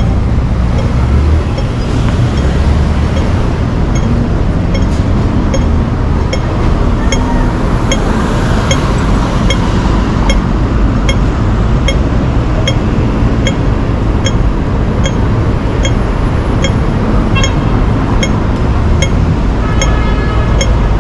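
Street traffic noise with a steady low rumble, over which a pedestrian crossing's audible signal ticks evenly, a bit under twice a second: the slow tick of the wait phase. A short pitched sound rises briefly near the end.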